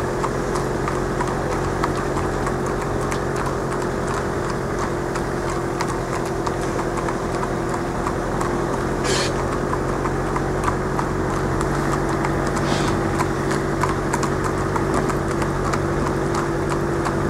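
Hooves of two harness horses clip-clopping on a wet tarmac road as they trot, a rapid run of sharp hoofbeats. Under them runs the steady hum of car engines following behind.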